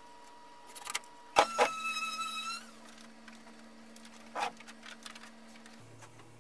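Cordless drill/driver running in a short burst of about a second, a high steady whine, starting just after a sharp knock; another dull knock follows a few seconds later.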